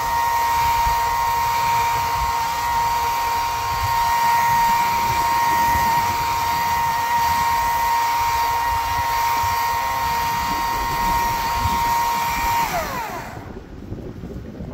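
A motor-driven power tool running with a steady high whine, then switched off about 13 seconds in, its whine falling as it winds down.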